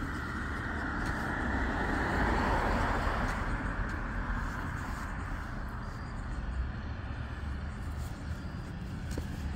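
A car passing along the street, its tyre and engine noise swelling over the first few seconds and fading away, over a low background rumble of traffic.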